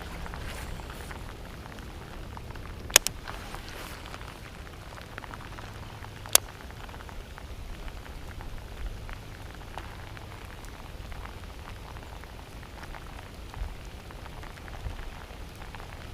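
Hard rain falling steadily, with two sharp ticks about three and six seconds in.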